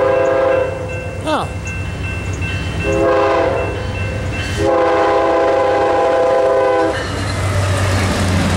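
Amtrak GE P42DC locomotive's multi-tone air horn sounding in a long–short–long pattern: a long blast ending soon after the start, a short blast about three seconds in, and a two-second blast. This is the pattern of a grade-crossing signal. Near the end the horn stops and the locomotive's diesel engine rumbles low as it passes close by.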